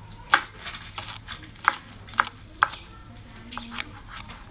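Chef's knife slicing garlic cloves, still in their skins, on a wooden cutting board. The blade knocks sharply on the board about five times over the first three seconds, then the cuts turn quieter.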